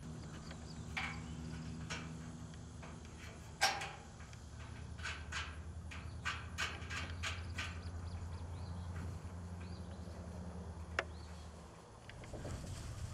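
Small metal clicks and taps as bolts, nuts and washers are fitted by hand into a steel roof-frame bracket: a sharp click about three and a half seconds in, then a quick run of clicks a couple of seconds later. A steady low hum runs underneath.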